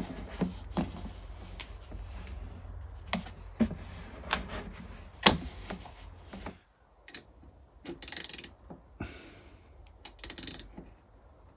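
Handling clatter of an orange plastic funnel against an oil container: scattered small clicks and knocks over a low rumble for about the first six seconds. Later come two short hissy bursts, about eight and ten and a half seconds in.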